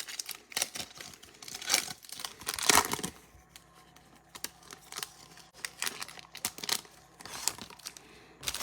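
A trading-card pack's wrapper being torn open and crinkled, loudest in the first three seconds, followed by lighter rustles and clicks as the cards are handled.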